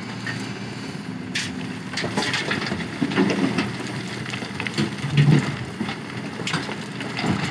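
Excavator bucket tipping sand and gravel into a dump truck bed: a rattling, crackling pour of stones, starting about two seconds in, over the steady run of the diesel engines.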